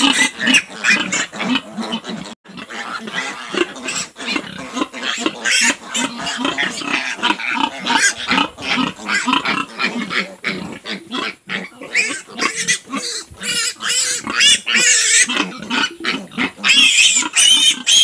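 Piglets squealing while being caught and handled for iron injections. The squeals are high-pitched and come one after another with hardly a break. They are loudest near the end, as a piglet is lifted up.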